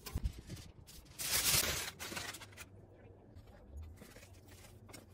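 A few sharp clacks of metal barbecue tongs on the grill grate and steak, then a short, loud scrape about a second in.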